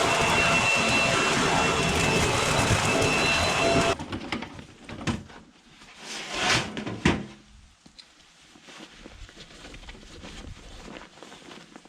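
Black & Decker BEBLV301 electric garden blower-vacuum running at full speed: a loud steady rush of air with a whine over it, which cuts off abruptly about four seconds in. After it come a few quieter knocks and rustles.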